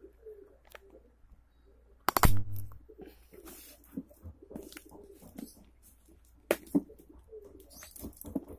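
A dove cooing repeatedly in the background, low and wavering. There is a loud knock of handling about two seconds in, and a few sharp clicks later on.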